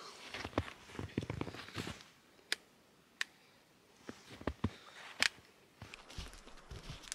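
A campfire crackling with scattered sharp pops, mixed with soft rustling and a few dull thumps.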